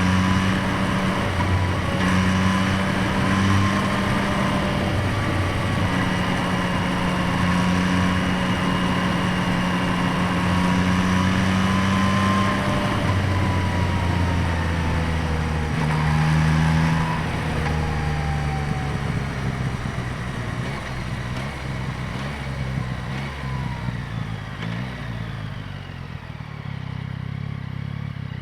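2025 Yamaha MT-09's three-cylinder engine running, close-miked at the air box and exhaust. The note holds fairly steady with small steps in pitch, then eases off and fades somewhat over the last ten seconds, settling to a steady lower note near the end.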